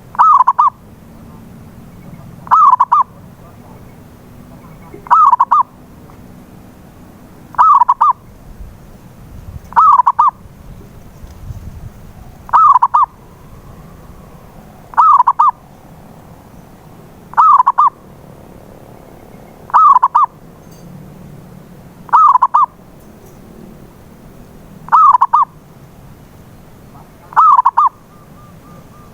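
Zebra dove (perkutut) cooing song: a short, loud phrase of quick cooing notes, repeated about every two and a half seconds, twelve times.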